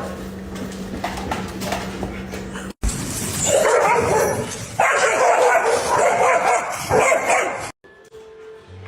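A dog barking and whining in long bouts, starting after a cut about three seconds in and stopping abruptly near the end.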